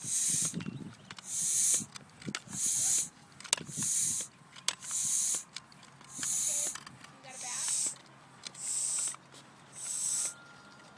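Bicycle pump worked in steady strokes, a hiss of air with each stroke, about one a second, with light clicks between strokes.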